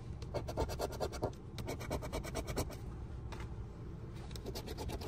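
A coin scratching the coating off a lottery scratch-off ticket in quick repeated strokes.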